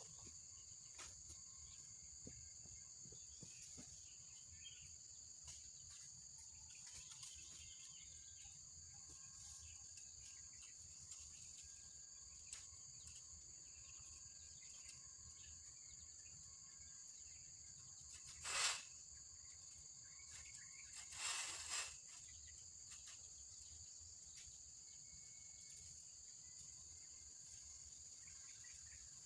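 Faint, steady high-pitched chorus of insects such as crickets. Two short, louder noises stand out about two-thirds of the way in.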